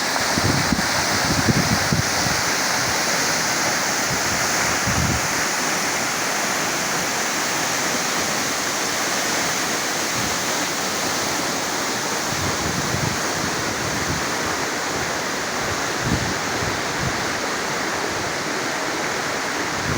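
Waterfall rushing steadily, an even wash of falling water, with a few brief low rumbles of wind buffeting the microphone.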